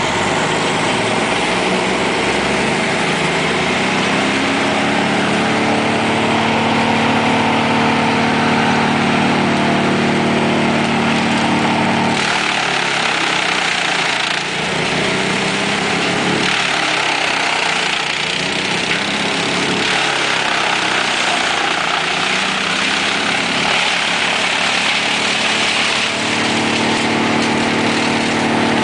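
Truck-mounted wood chipper and its loader running, with a steady engine tone under a rushing noise. From about twelve seconds in, the engine pitch wavers unsteadily as the grapple feeds branches into the chipper under load. It steadies again near the end.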